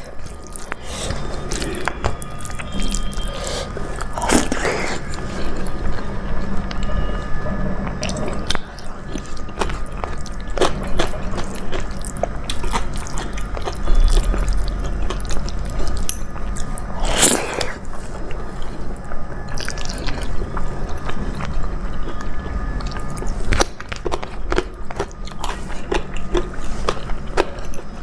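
Close-miked eating sounds: chewing and biting of rice, dal and vegetable sabzi, a steady run of wet mouth clicks and smacks, with two longer slurping or sucking sounds, one early and one about halfway.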